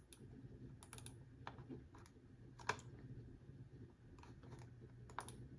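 Faint, scattered clicks of a computer keyboard and mouse in use, about ten spread unevenly, the loudest a little before the middle, over a steady low hum.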